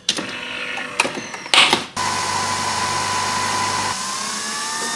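Nespresso Vertuo capsule coffee machine brewing: a couple of clicks and a clunk, then from about two seconds in a steady motor whir with a thin whine as it spins the capsule and extracts the coffee. Near the end the whine rises slightly in pitch.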